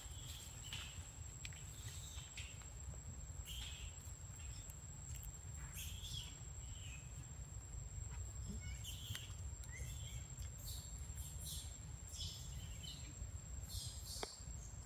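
Forest ambience: a steady high insect whine with scattered short high chirps all through, over a low rumble.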